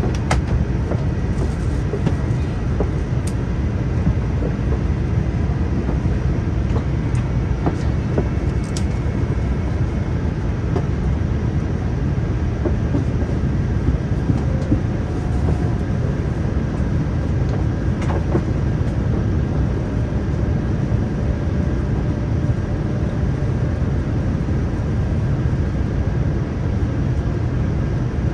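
Steady low rumble of a Boeing 787-9 airliner in flight, heard from inside the aircraft: airflow and engine noise at an even level, with a few faint clicks.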